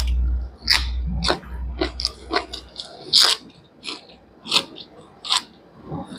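Close-up crisp crunching and chewing of raw leafy green stalks, about ten bites and chews roughly every half second to second. A low rumble runs under the first two seconds or so.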